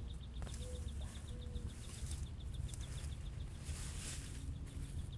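A bird trilling: a rapid string of high ticks, about eight a second, runs throughout, with two short low calls in the first second and a half. There is some rustling of soil being handled.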